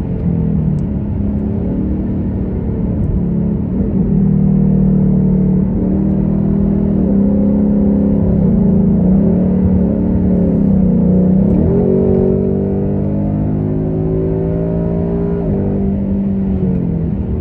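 2021 Mustang GT's 5.0 V8 with an X-pipe in place of its resonators, running while driving; the exhaust note climbs and drops in pitch several times and grows louder about four seconds in.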